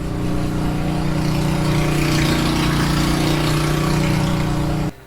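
Lawn mower engine sound effect running steadily, then cutting off suddenly near the end.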